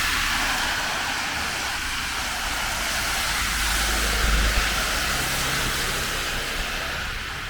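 Heavy rain falling steadily, with a motor vehicle passing close by; its engine rumble swells to a peak about four seconds in, then fades.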